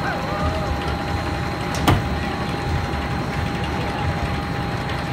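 Gerstlauer Euro-Fighter roller coaster's chain lift hauling the train straight up the vertical lift hill: a steady mechanical rumble and clatter with a steady whine, and one sharp click about two seconds in.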